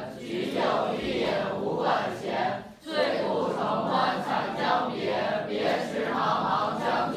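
A classroom of students reciting a classical Chinese poem aloud in Mandarin, many voices chanting together, with a brief lull about three seconds in.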